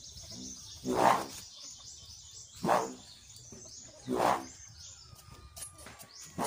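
Birds chirping rapidly and continuously, high-pitched. Three louder short sounds come about a second and a half apart.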